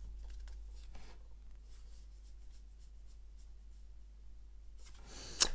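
Faint scratchy rubbing and light ticks of a stack of trading cards being slid out of a torn foil booster pack and handled, with one sharper click near the end.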